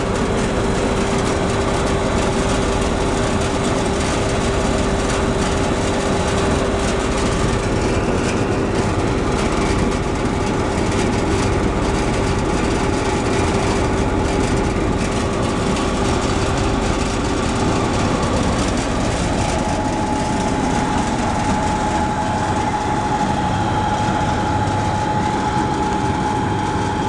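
Electric soybean and pea peeling machine running steadily: a constant mechanical hum with a steady whine, which gives way to a higher-pitched whine about two-thirds of the way through.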